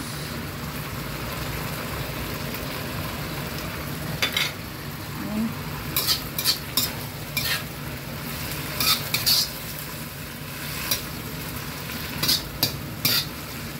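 Alugbati (Malabar spinach) and sardines sizzling steadily in a wok, with a spatula scraping and clinking against the pan in repeated short strokes from about four seconds in as the greens are stirred.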